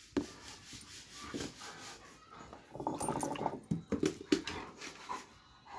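Red Doberman at close range giving a short low grumbling whine about three seconds in, among rubbing and knocking sounds as its body and muzzle brush against the phone.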